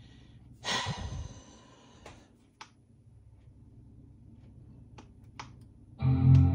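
A breathy sigh about a second in, a few faint clicks, then near the end the iMac's startup chime starts: a loud, steady chord signalling that the computer is booting after a restart.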